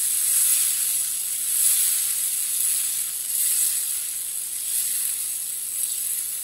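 Potato curry, just thinned with a cup of water, sizzling in a frying pan as it heats toward the boil: a steady hiss that slowly fades.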